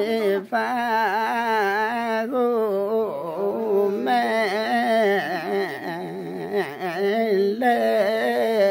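One voice singing without accompaniment, in long held phrases with a wavering, ornamented pitch and short breaks between phrases.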